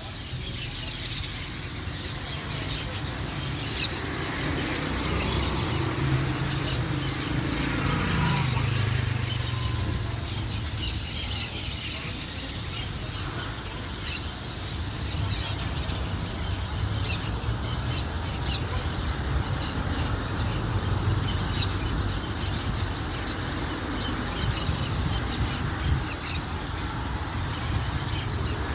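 Small birds chirping over a steady low rumble, with a passing vehicle about a quarter of the way in whose pitch drops as it goes by.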